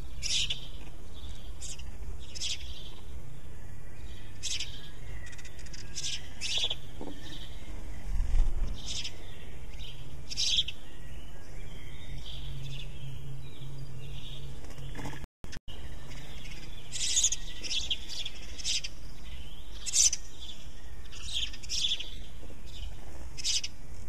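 House sparrow chirping: short, bright chirps repeated at irregular intervals, over a low background rumble.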